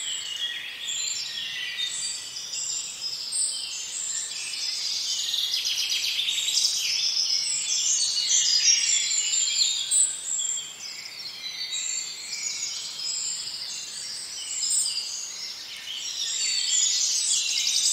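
Birds chirping, many short calls overlapping in a dense chorus that grows louder toward the middle and again near the end.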